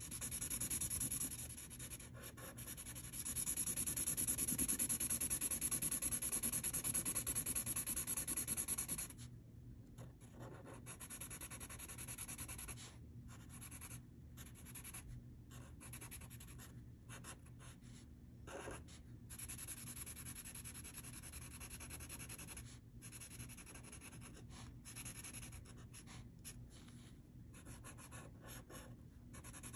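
Green Sharpie fine-point marker rubbing back and forth on paper as an area is coloured in. There is a steady scratchy hiss for about the first nine seconds, then softer strokes broken by many short pauses.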